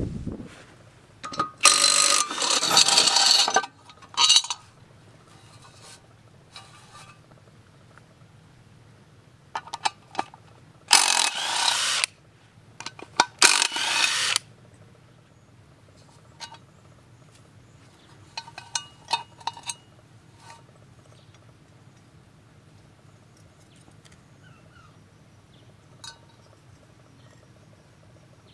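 Bosch cordless power driver with a socket undoing the blade bolts on a lawn mower's blade holder, in several loud bursts of a second or two. Short metallic clicks and clinks of bolts being handled come in between.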